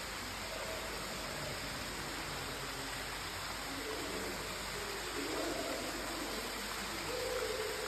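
Steady rushing hiss, with faint short pitched tones about five and seven seconds in.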